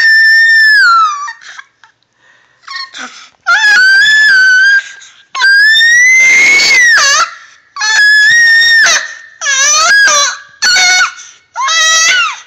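A baby's high-pitched squeals: a string of about seven drawn-out shrieks with short gaps between them, several gliding up and then dropping off at the end.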